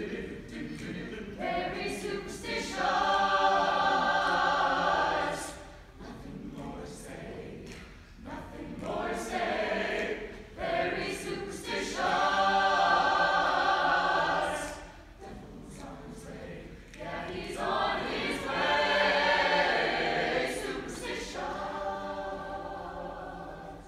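Large mixed choir of young voices singing together, in phrases that swell loud three times and drop back to softer passages between.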